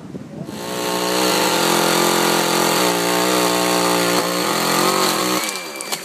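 Chainsaw engine running steadily at speed, with a slight dip in pitch midway. It cuts off abruptly near the end.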